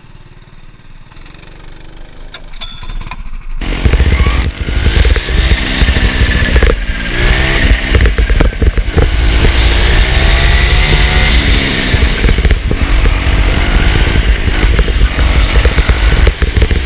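Several small go-kart engines running and revving, their pitch rising and falling as the karts accelerate and ease off. The sound cuts in suddenly and loud about four seconds in, after a quieter stretch that builds up.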